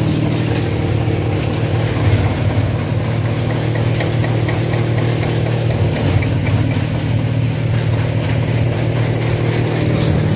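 Narmada hydraulic thresher running steadily under load on its diesel drive, a constant even engine-and-drum drone while it threshes ajwain.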